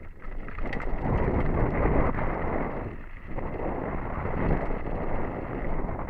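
Wind rushing over a helmet camera's microphone on a fast mountain bike descent, mixed with the tyres crunching over a loose, stony dirt trail and the bike rattling over the bumps. The rush dips briefly about three seconds in.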